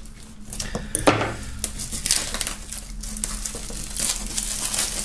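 Clear plastic shrink-wrap film crinkling and crackling as it is slit with a knife and peeled off a box, with a sharp click about a second in and the crinkling thickening from about two seconds in.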